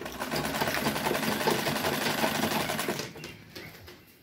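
Necchi sewing machine running fast, its needle stitching along the edge of a cloth in a rapid, even rhythm, then stopping about three seconds in.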